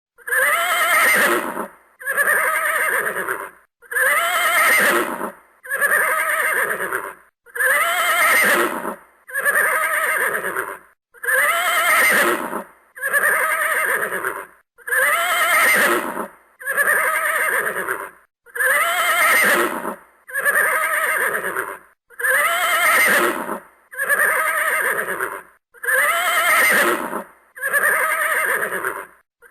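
A horse neighing, the same whinny repeated over and over at even spacing, about one call every two seconds, each call about a second and a half long.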